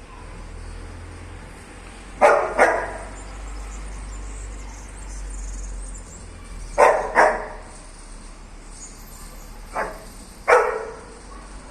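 Husky giving short play barks, six in three quick pairs.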